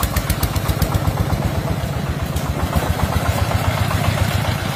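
Single-cylinder 'dompeng' diesel engine running steadily, with a rapid, even chugging beat.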